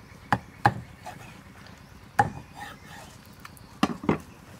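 Meat cleaver chopping a whole raw chicken in half on a wooden chopping block: five sharp chops, two in the first second, one about halfway, and two close together near the end.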